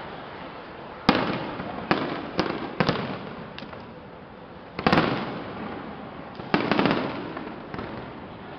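Fireworks display: aerial shells bursting with sharp bangs that echo and die away, about eight in all, the loudest about five seconds in, with a quick cluster of reports around seven seconds.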